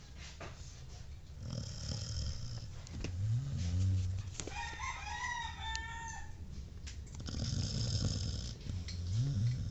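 Sleeping dog snoring in a slow rhythm, a deep snoring breath about every five seconds. A rooster crows once, about halfway through.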